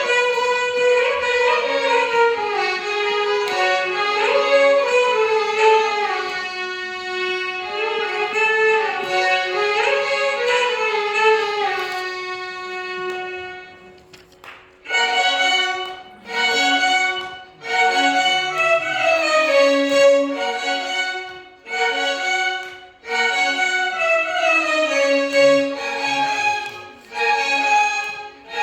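A violin ensemble plays a Carnatic melody with gliding ornaments (gamakas). About halfway through it drops away briefly, then comes back in short phrases that break off suddenly, one after another.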